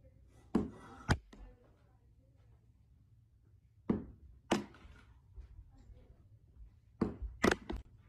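Sharp knocks of small objects tossed down onto carpeted stairs: two about a second in, two more around four seconds in, and a quick run of four near the end.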